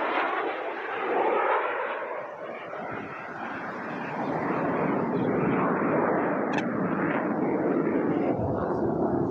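Jet noise from a Panavia Tornado's twin RB199 turbofans: a rushing roar that swells about a second in, eases for a couple of seconds, then builds again and holds.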